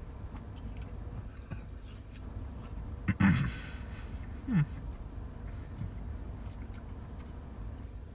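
A man chewing a mouthful of Oreo Blizzard ice cream with gummy worms, with faint wet clicks throughout. Two short hummed "mm" sounds come about three and four and a half seconds in, over a low steady background hum.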